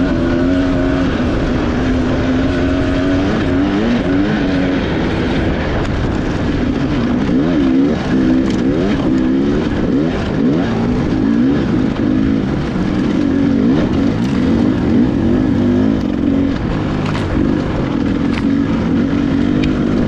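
Dirt bike engine heard from on board, its revs rising and falling again and again as the rider works the throttle and changes gear over rough, rocky trail, with a constant noise of wind and terrain.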